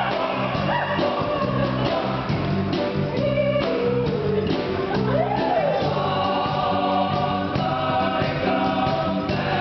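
Men's choir singing a pop song in close harmony, backed by electric bass guitar and keyboard, with held low notes under the voices. About halfway through, one voice swoops up in pitch and back down.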